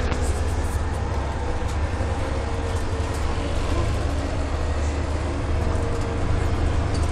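Steady low rumble of a city bus running, heard from inside the passenger cabin, with a faint steady hum and a few light ticks.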